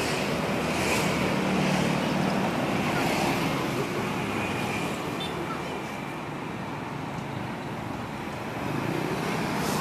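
Road traffic passing, a continuous noise that swells in the first few seconds, eases off and builds again near the end.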